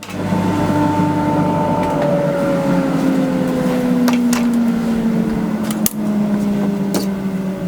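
Bandsaw with a 3 tpi blade ripping a board. Its steady hum sinks slowly in pitch through the cut, with a few sharp ticks along the way.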